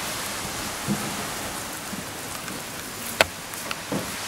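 Steady, even hiss of open-air background noise, with a single sharp knock a little past three seconds in.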